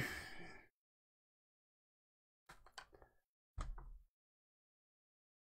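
Near silence, broken by a short breathy sound at the start, a few faint clicks about two and a half seconds in, and a soft low thump near the four-second mark.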